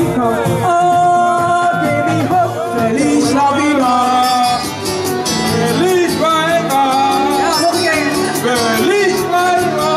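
Live singing into a handheld microphone over a Christmas pop backing track with a steady beat, played through a PA speaker.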